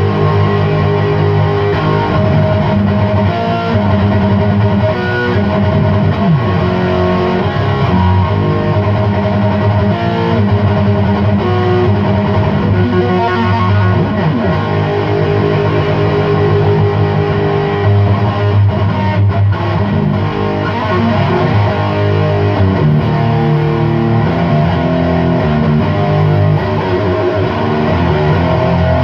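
Electric guitar played through a Chupacabra 100 amplifier with its clipping diodes switched off: loud, distorted high-gain riffs and chords, played without a break.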